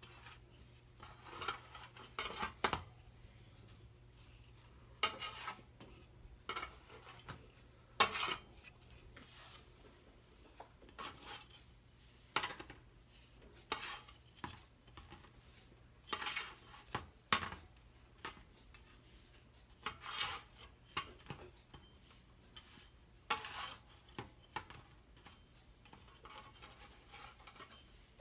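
Slotted spatula scraping and clacking against a baking sheet as baked dog treats are turned over one at a time: short, irregular scrapes every second or two over a low steady hum.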